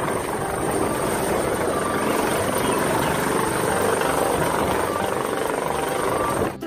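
Helicopter hovering low, a steady rotor and engine noise with a thin high-pitched whine above it.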